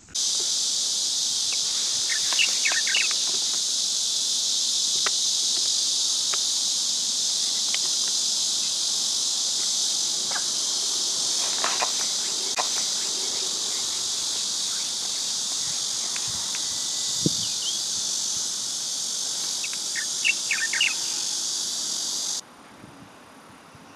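Steady, loud, shrill chorus of insects, with a few short chirps scattered through it; it cuts off suddenly near the end.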